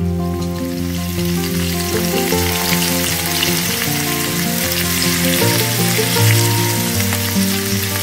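Meat frying in a pan, sizzling steadily, with background acoustic guitar music playing underneath.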